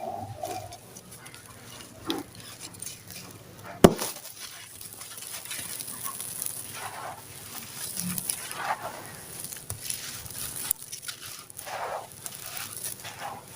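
Dry, gritty sand-cement crumbling and crunching in uneven soft crumbles, with one sharp crack about four seconds in.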